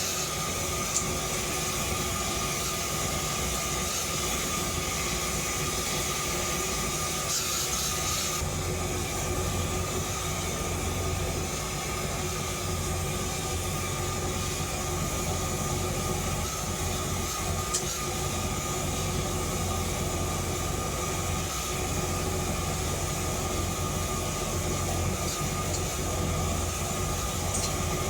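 Forge running with a steady rushing noise and a low hum, as the steel bar stock heats for bending. There are a couple of faint ticks.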